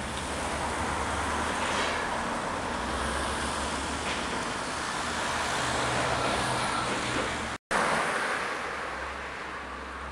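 Steady outdoor city traffic noise, a constant rumble of road vehicles, broken by a brief dropout about three-quarters of the way through.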